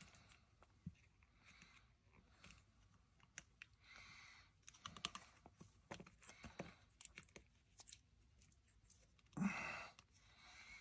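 Faint handling sounds of fingers pressing and smoothing double-sided tape onto a pouch battery pack: scattered small clicks and short rustles, with one louder brief rustle about nine and a half seconds in.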